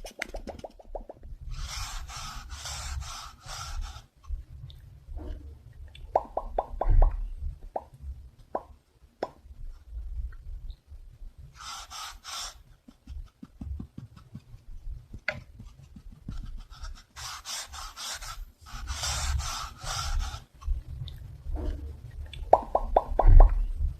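Close-miked ASMR triggers: several bursts of scratching on a surface, each a second or two long, alternate with quick runs of sharp popping clicks, over low thumps.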